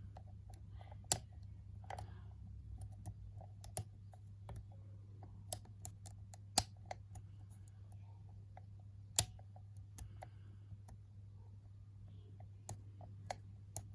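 Hook pick and tension bar working the pins of a Sterling euro cylinder lock with security pins, making scattered sharp, irregular clicks over a steady low hum.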